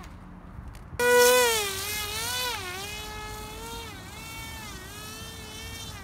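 Small electric brushless motor and propeller of a radio-controlled paramotor (DX2205 2300KV motor) throttling up suddenly about a second in for takeoff. It gives a loud buzzing whine that wavers up and down in pitch, then settles to a steadier, quieter whine as the paramotor flies.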